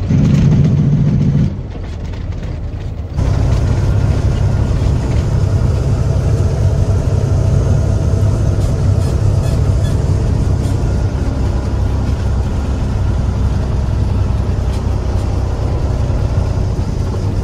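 Peterbilt semi-truck's diesel engine heard from inside the cab. Its Jake brake (engine brake) sounds loud for about the first second and a half. From about three seconds in, the engine pulls steadily as the truck drives down the road.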